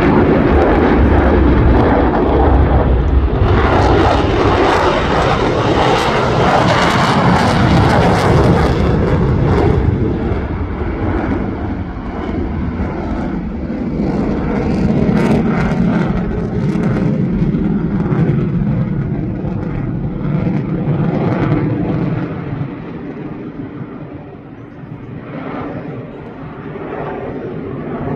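F-35 Lightning II jet, its single Pratt & Whitney F135 turbofan giving a loud, rough jet roar. The roar is strongest for the first ten seconds, then rises and falls as the jet moves about, fading lower near the end.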